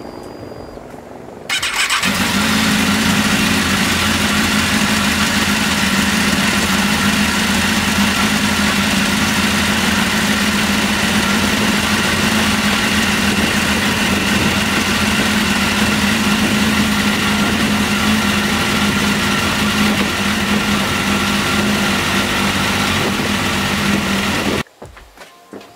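Kawasaki ZX10R's inline-four engine starting about a second and a half in, then idling steadily, and stopping abruptly near the end.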